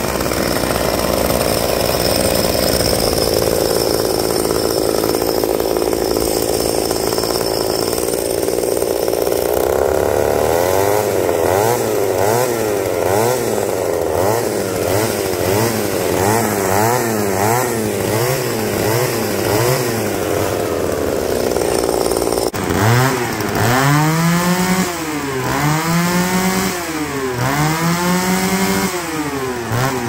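Small two-stroke engines on a homemade motorized bicycle running at a steady high speed, then blipped up and down quickly, nearly two revs a second. Then abruptly a series of longer revs, each rising sharply and falling back, about one every second and a half.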